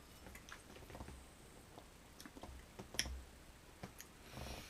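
Faint scattered clicks and small taps in a quiet room, with one louder click about three seconds in and a brief soft hiss near the end.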